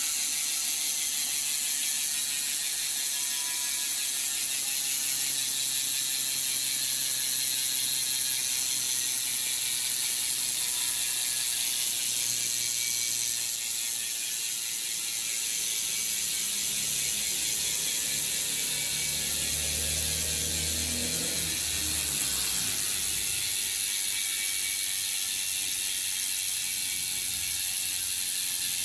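Freehub of a Vzan Concept bicycle wheel buzzing as the wheel freewheels: the pawls click so fast they blend into a steady, high ratchet whir.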